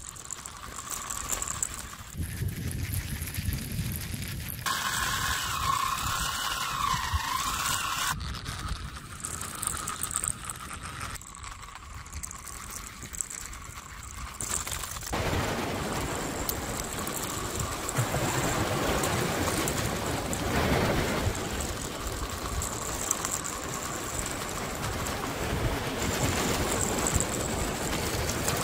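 Homemade toy beach buggy's two small DC motors running on a 9 V battery as it drives over the ground, in several short takes that change abruptly. In one take, about five seconds in, a wavering whine rises and falls for about three seconds.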